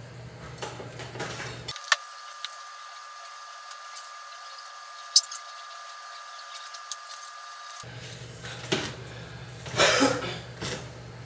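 Heavy breathing between weighted pull-up efforts, with two sharp clicks. A forceful exhale about ten seconds in.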